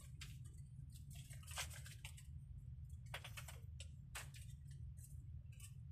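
Faint handling noise from a tangle of extension cords being sorted: scattered short rustles and clicks, a cluster about a second and a half in and another about three seconds in, over a steady low hum.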